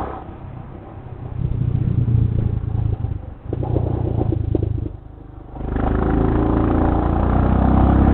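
Motorcycle engine and exhaust pulling uphill, easing off twice, about half a second in and again around five seconds in, then coming back on the throttle and holding a steady loud beat.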